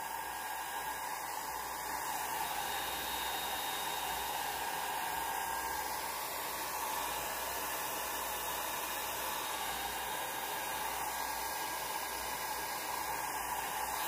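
Handheld blow dryer running steadily, a continuous even rush of air blowing wet alcohol ink across glossy paper.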